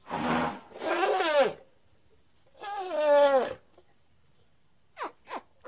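Baby elephant calling: three cries, each about a second long and falling in pitch, then two short, sharply falling squeaks near the end.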